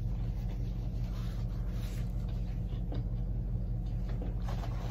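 Steady low electrical hum, a mains buzz with its overtones, with a few faint soft noises about two, three and four and a half seconds in.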